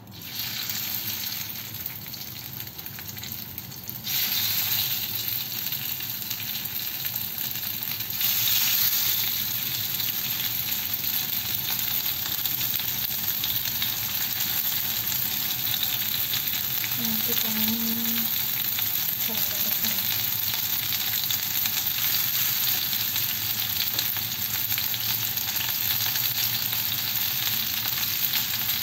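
Marinated chicken skewers sizzling in hot oil on a ridged grill pan. The sizzle steps up in loudness about four and eight seconds in as more skewers are laid on, then holds steady.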